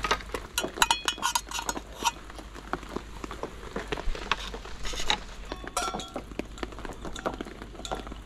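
Metal camping cups and utensils clinking and knocking as they are picked up, nested together and set down on a wooden board, with short metallic rings about a second in and again about six seconds in.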